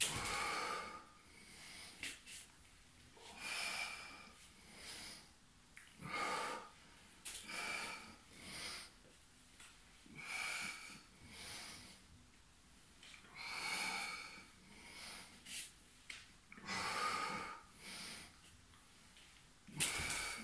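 A man breathing hard under exertion, with forceful breaths in and out through nose and mouth every second or two, often in pairs.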